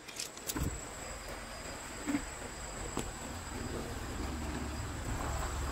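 Night insects trilling on one steady, thin, high note, over a low rumble that grows a little louder toward the end, with a few faint clicks.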